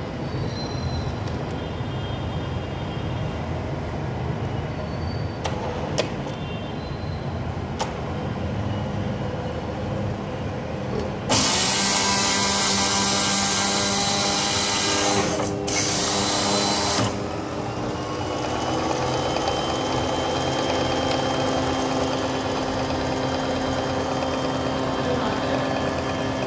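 Automated baking machine running: a steady mechanical hum with a few sharp clicks, then a loud rushing hiss for about six seconds, broken once briefly. After that the machine settles into a steady hum with a thin whine.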